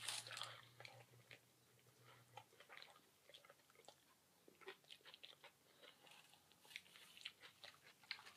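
Faint close-up chewing and biting of a buffalo chicken sub sandwich: soft, irregular wet mouth clicks.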